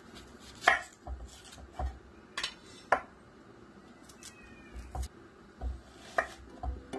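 Chef's knife cutting an onion on a plastic cutting board: single knocks of the blade on the board, about nine, spaced half a second to a second apart, with a pause in the middle.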